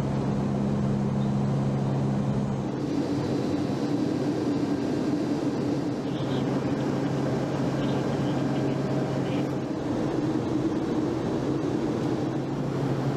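Steady drone of a four-engine turboprop search aircraft heard from inside the cabin, a low hum with a few steady tones that shift in pitch about three seconds in.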